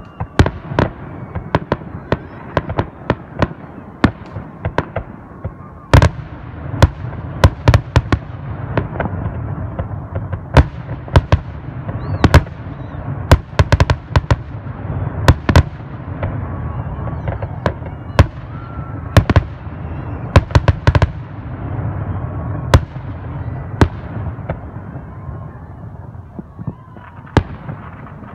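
Fireworks display: aerial shells bursting one after another in quick, irregular succession, sharp bangs over a continuous low rumble, busiest through the middle stretch.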